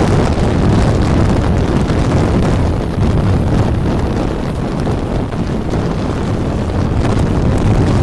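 Wind buffeting a microphone held out of the window of a moving passenger train, a loud steady rush, with the carriage's running noise mixed in.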